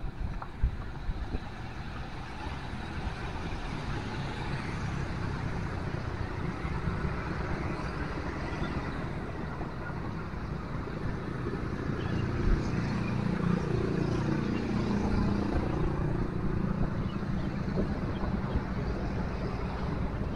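Road traffic noise: motor vehicles passing, with an engine growing louder about two-thirds of the way through. A low rumble of wind on the microphone runs underneath.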